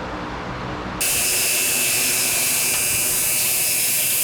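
2x72 belt grinder grinding the flats of a steel blade held in a surface grinding attachment. A low steady hum gives way about a second in to a loud, steady hiss with a thin high whine.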